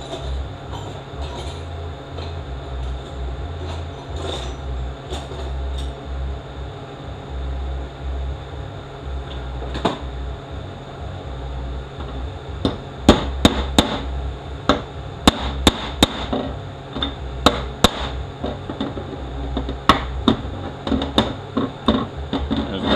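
Hammer driving a small steel ball into a hole in a 6L80E transmission pump to block it off: a run of sharp metal-on-metal strikes, irregular and roughly a dozen or more, over the second half. Before them only a steady low shop hum and a few faint clicks of parts being handled.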